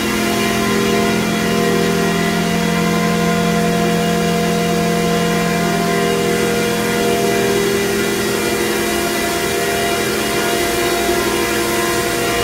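Steady running drone of a plastic extrusion and pelletizing line's machinery, motors and a dewatering blower, with several steady humming tones over a constant hiss.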